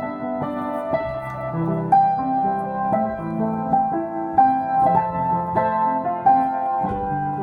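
Slow solo piano music: single melody notes struck about once a second and left ringing over low held chords.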